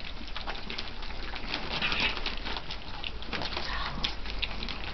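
A litter of Old English Sheepdog puppies lapping and smacking at soft, mushy food from a plate: a busy, irregular patter of quick wet clicks from many mouths at once.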